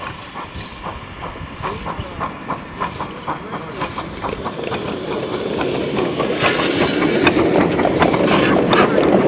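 A 7.5-inch gauge live steam locomotive, a 4-8-4, running toward and past at close range. A steady beat of about three strokes a second grows louder, then gives way to a rising rumble and hiss of wheels on rail as the engine and its riding cars go by. It is loudest near the end.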